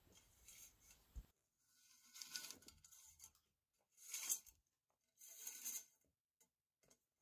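Faint rasping as speaker wire is pulled through the hollow stand pole of a tower speaker, in three short scraping bursts about two, four and five and a half seconds in.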